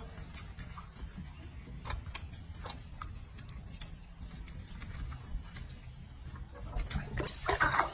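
Light, irregular wet clicks and splashes as hands scrub a soapy baby monkey in a sink of water, over a low steady hum, growing louder and busier near the end.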